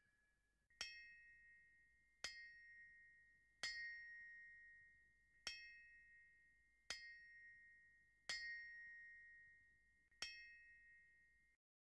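A small bell-like metallic chime struck seven times at uneven intervals. Each strike rings a clear tone that fades slowly, and the ringing cuts off abruptly near the end.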